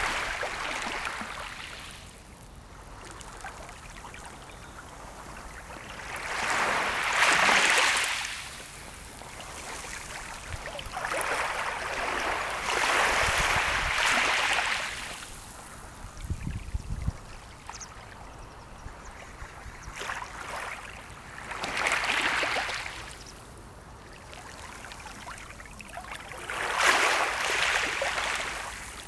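Sea waves washing onto the shore, each swell rising and falling away, one every five to eight seconds, with a lower steady wash between them.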